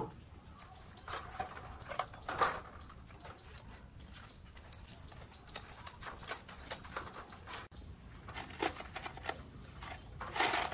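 Scattered light knocks and clicks at an uneven pace, a few with a brief high metallic ring.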